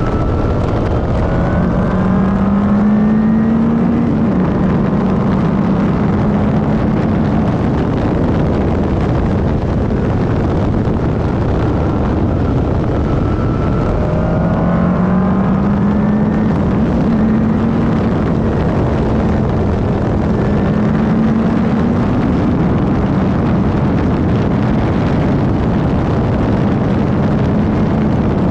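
Van Diemen RF01 Formula Ireland single-seater racing car at speed, heard on board: the engine note climbs and levels off three times over a heavy rush of wind and road noise.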